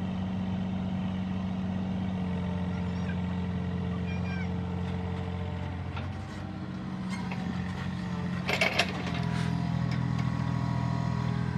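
Mini excavator's diesel engine running steadily. The sound dips slightly just past halfway. About three-quarters through there is a brief sharp clatter, and after it the engine note shifts.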